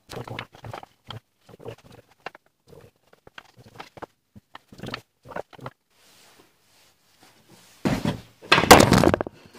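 Lengths of hardwood knocking and clicking against each other and the wooden workbench as they are picked up and laid out. After a short pause, a loud clattering bump near the end.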